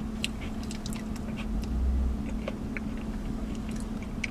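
A person chewing a spoonful of food close to the microphone: wet mouth noises, lip smacks and small clicks scattered through. A steady low hum runs underneath, and there is a soft low thump about two seconds in.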